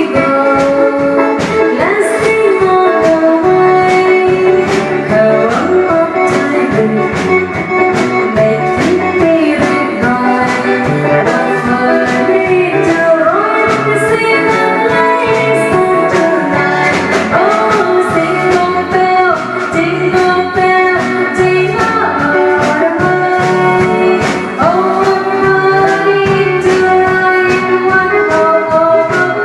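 A singer performing a song with a live band, a steady drum beat under the voice.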